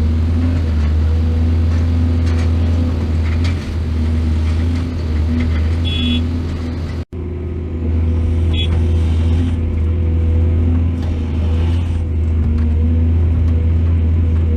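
Excavator's diesel engine running steadily with a deep low hum, with a few short high metallic squeals in the middle. The sound drops out for an instant about halfway through.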